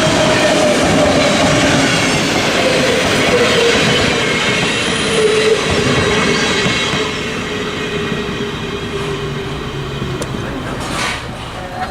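Train passing on the rails, a steady loud rumble of wheels on track with a tone that slowly falls in pitch; the sound eases off in the last few seconds.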